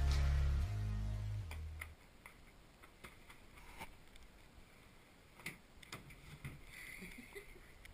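Background music with a low bass line fades out about a second and a half in. Faint, scattered clicks and taps follow.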